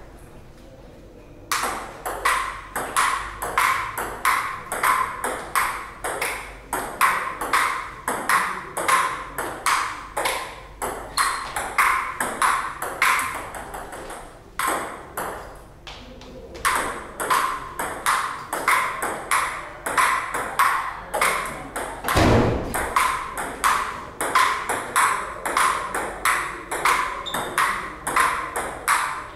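Table tennis rallies: the celluloid ball clicking sharply off rubber paddles and the table top, about three hits a second, with brief pauses between points near the start and about halfway. A single dull low thud sounds a little past three-quarters of the way through.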